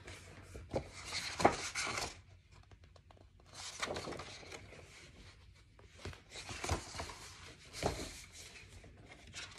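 A picture book being handled close to the microphone: its pages and cover rustle and brush in about four short bursts as it is lifted, held up and lowered again.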